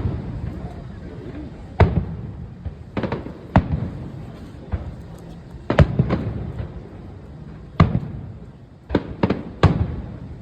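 Fireworks display: an irregular string of loud bangs from bursting fireworks, about ten in all, some in quick pairs, each followed by a short echo.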